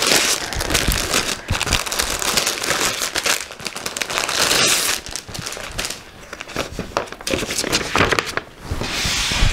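Clear plastic packaging crinkling and rustling as it is handled, with short lulls in between.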